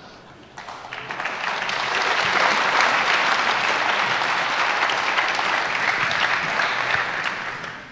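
Audience applauding: the clapping swells up about half a second in, holds steady for several seconds, and dies away near the end.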